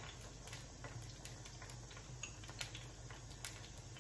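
Mustard seeds, urad dal and curry leaves spluttering in hot sesame oil in a small tempering ladle: a faint, irregular crackle of sharp pops.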